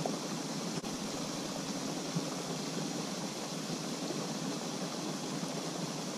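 Steady rushing hiss of water from a pond's spray fountain, even and unbroken, with a faint click about a second in.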